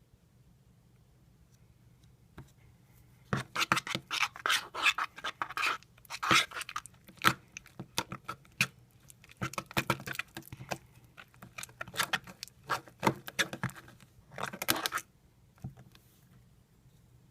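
A utensil stirring slime mixture of glue and laundry detergent in a bowl, scraping and clicking against its sides in quick irregular strokes with short pauses, starting about three seconds in and stopping shortly before the end.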